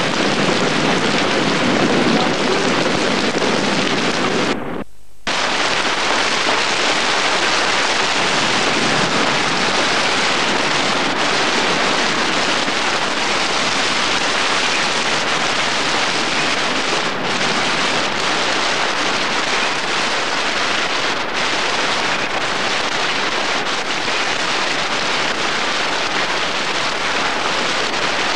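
Steady rain: a dense, even hiss of falling water that dips briefly about five seconds in.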